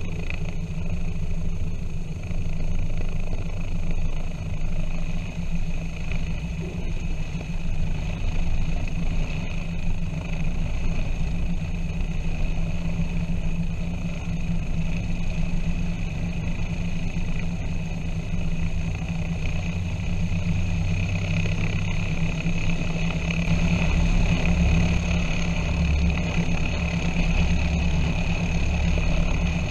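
Piper PA-23 Apache's piston engine running steadily at low power with the propeller turning as the twin rolls along the runway; the engine sound grows a little louder about 23 seconds in.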